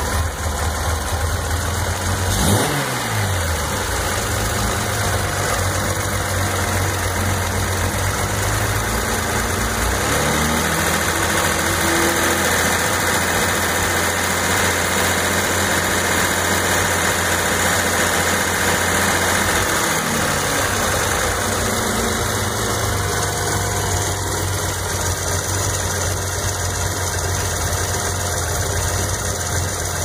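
Datsun 260Z inline-six engine running with a noise that was traced to a bad alternator. Its speed rises about ten seconds in, holds there, and drops back to idle near twenty seconds.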